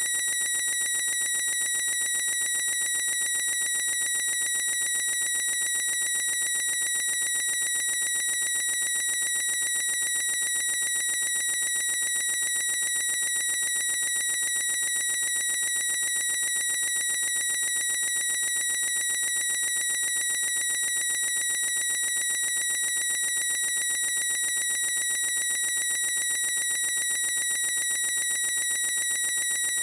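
A young man's high-pitched squeal, held at one unchanging pitch without a break.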